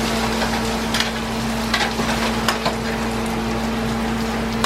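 Food sizzling in a hot pan: a steady frying hiss with a few sharp pops, over a constant low hum.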